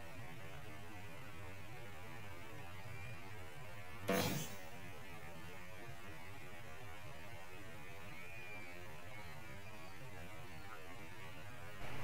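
A steady low hum with an even background hiss, broken about four seconds in by one brief, loud rushing noise lasting about half a second.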